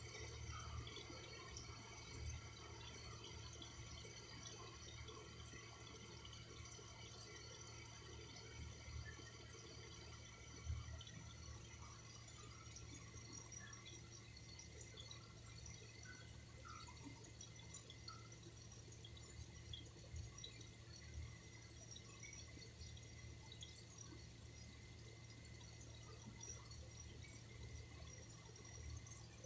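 Faint water dripping and trickling, with scattered small drops over a steady low wash.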